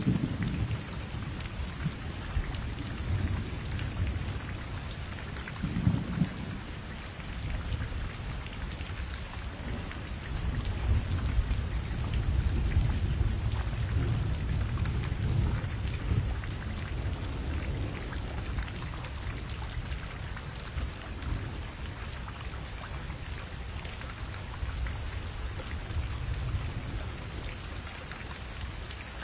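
Thunderstorm: steady rain hiss with low thunder rumbling throughout. The thunder swells about six seconds in and again from about eleven to sixteen seconds.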